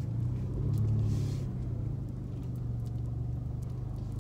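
Steady low engine and road hum heard from inside a moving car's cabin, briefly louder about a second in.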